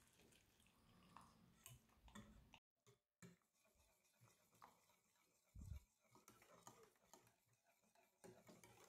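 Near silence with faint clicks of a wire whisk stirring chocolate glaze in a stainless-steel saucepan. There is a moment of dead silence about a third of the way in, and a soft low thump about two-thirds in.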